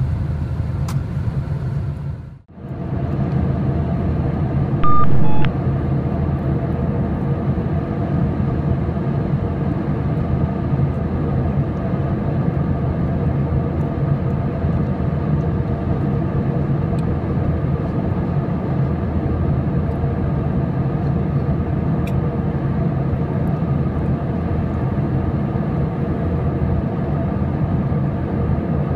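Steady low cabin roar of an Airbus A321 at cruise altitude, from engine and airflow noise. It drops out briefly about two and a half seconds in. About five seconds in, a short two-note high-low cabin chime sounds.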